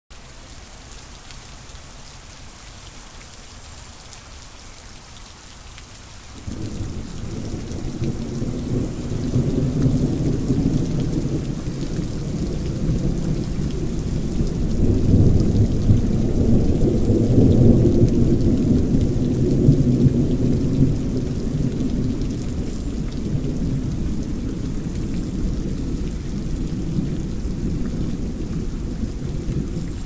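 Steady rain falling, and about six seconds in a long rumble of thunder starts suddenly, swells, and keeps rolling.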